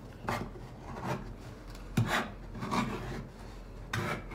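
Kitchen knife cutting open a tin can's lid by hand: the blade is worked around the rim through the metal in about six short, uneven strokes.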